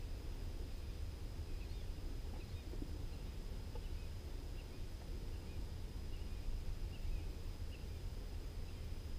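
Outdoor background: a steady low rumble, with a few faint bird chirps now and then.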